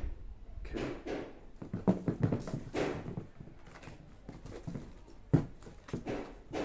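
Handling noises from a new shoe and its packaging: intermittent rustling and light knocks, with one sharper knock about two-thirds of the way through.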